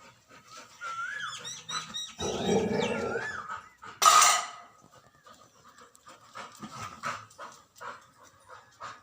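Rottweiler making a few short high whines and a rough low sound, then one loud bark about four seconds in, followed by quick panting.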